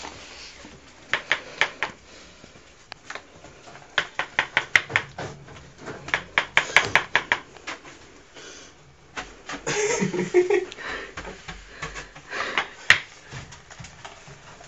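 Ferrets dooking, their excited clucking coming in quick runs of clicks as they chase and pounce on a broom. A louder, busier burst comes about ten seconds in.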